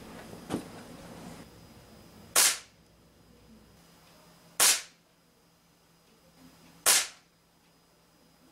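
Crosman Legacy 1000 multi-pump air rifle firing pellets: three sharp cracks a little over two seconds apart, after a faint click near the start.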